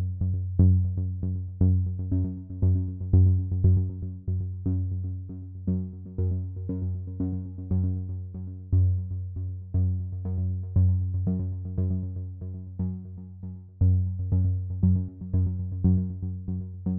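Instrumental background music: quick, evenly repeated notes over a steady bass line.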